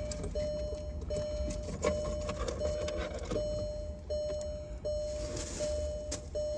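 A car's warning chime beeps steadily in an even repeating pattern, about one beep every 0.7 s, over a low steady rumble, with light clicks and rustling of items being handled.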